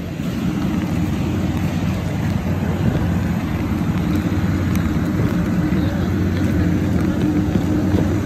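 Steady low drone of airport ramp machinery, a constant hum with a rough noisy edge and no change in pitch.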